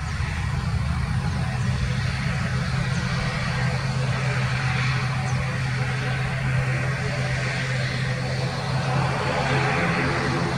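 ATR 72-600 turboprop airliner's twin Pratt & Whitney PW127 engines and six-bladed propellers running at high power for the takeoff run: a steady low propeller drone under a broad rushing roar that grows louder near the end.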